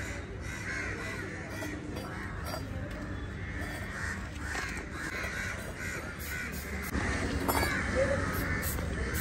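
Crows cawing repeatedly.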